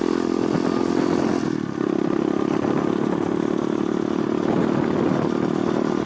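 Pit bike's small single-cylinder engine running steadily while being ridden, with a brief drop in the note about two seconds in.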